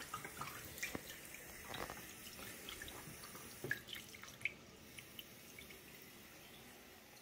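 Cooling water from a still's counterflow chiller running out of a clear plastic hose into a stainless steel sink, faint, with scattered drips and small splashes.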